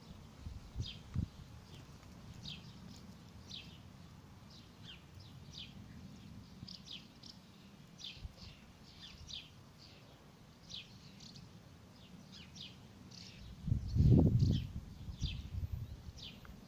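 A bird chirping over and over, short high chirps coming two or three times a second, over a low background rumble. About fourteen seconds in, a brief loud low rumble briefly drowns the chirps.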